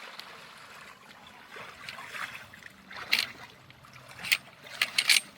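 Water sloshing and lapping, with a few short, sharp splashes about three seconds in and again near the end.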